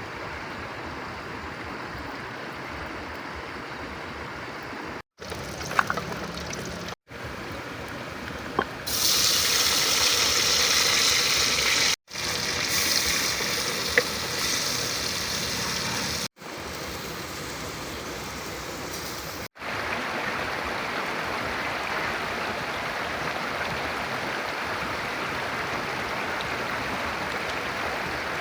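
River water running steadily, heard as an even rushing noise that jumps in level at several abrupt cuts. It is loudest and hissiest for a few seconds around a third of the way in, with a few faint clicks here and there.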